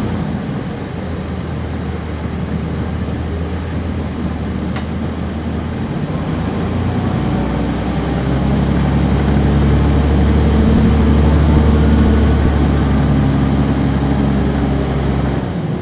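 Cummins ISC inline-six diesel engine of a 1999 NovaBus RTS transit bus heard from on board, running under way. The engine grows louder about six seconds in, stays strong for several seconds, then falls back suddenly near the end.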